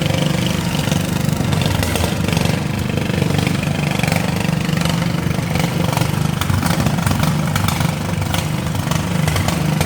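Riding lawn mower engines running together, a steady low drone, with scattered short knocks, more of them in the second half.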